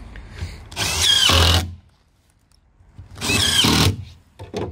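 Cordless drill driving screws into plywood: two bursts of motor whine of about a second each, the pitch bending as the screws bite and seat.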